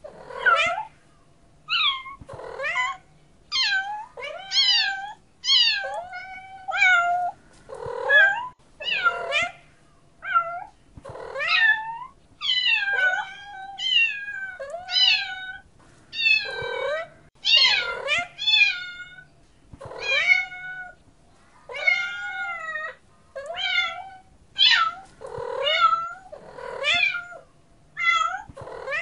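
A cat meowing over and over, short calls about one a second, some rising and some falling in pitch.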